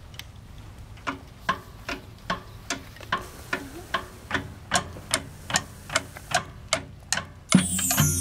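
Steady clock-like ticking, about two and a half ticks a second, with a soft low held tone joining under it partway through. About seven and a half seconds in, the full marching band comes in loudly with brass and percussion.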